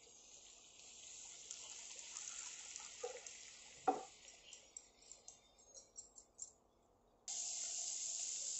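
Banana stem and onion pieces sizzling as they fry in a nonstick kadai, with a wooden spatula knocking once and clicking lightly against the pan while stirring. The sizzle becomes louder and steady about seven seconds in.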